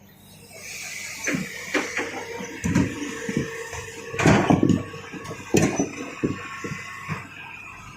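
Rocks being loaded by an excavator: irregular hard knocks and clunks, the loudest about a third and two thirds of the way through, over a faint steady whine.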